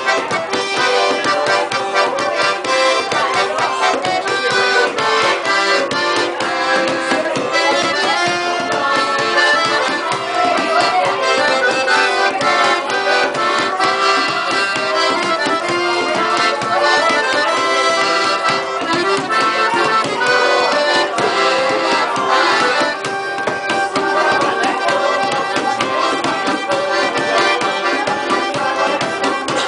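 Accordion (sanfona) playing a lively traditional tune with chords and melody throughout, accompanied by steady percussion hits.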